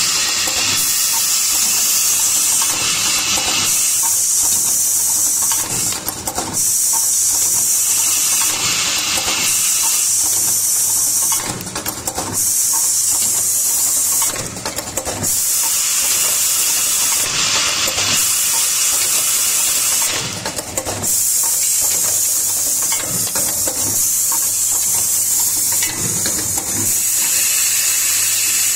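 Fully automatic O-ring installing machine running: a steady high hiss of compressed air under a faint low hum, with short pneumatic bursts every two to three seconds as the cylinders cycle.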